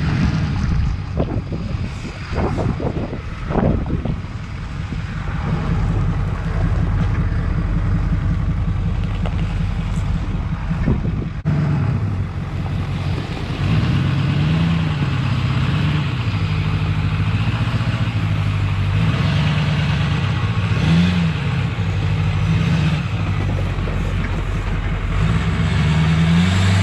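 Ford F-450's Power Stroke diesel engine running at low revs as the truck crawls off-road, with a few knocks in the first few seconds. After a cut about halfway through, the engine note rises and falls with light throttle.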